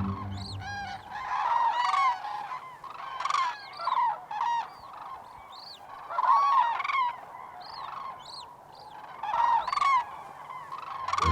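Common cranes trumpeting, several birds calling over one another in repeated loud bouts of honking calls. These are the calls of the cranes' dancing and calling courtship display, which strengthens the pair bond before breeding.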